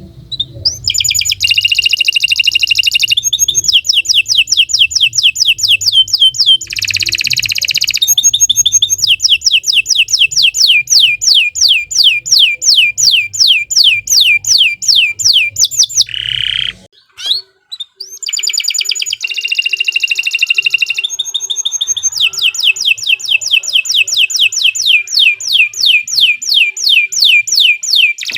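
Domestic canary singing a long, loud song of fast trills and rolls, each phrase a quick high note repeated several times a second before switching to the next, with a short break about two-thirds of the way through.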